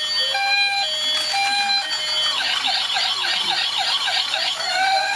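Toy police car's electronic siren sounding a two-tone hi-lo pattern, switching about two seconds in to a fast yelping warble of about four cycles a second, then to a slow rising wail near the end.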